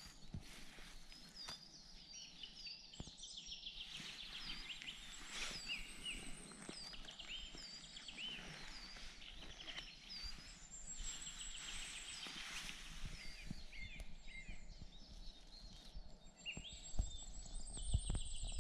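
Small songbirds singing faintly in several overlapping voices: short repeated chirping notes and thin, very high trills. A few knocks and rustles sound near the end.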